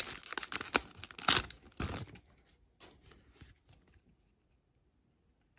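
Foil wrapper of a 15-16 Series 2 hockey card pack being torn open and crinkled: a dense crackling for about two seconds, then a few faint rustles as the cards come out, then quiet.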